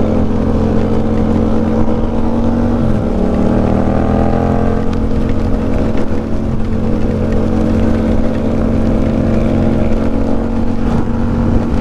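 Motorcycle engine running under way, its pitch climbing slowly, dropping back about five seconds in, then climbing again as the rider accelerates.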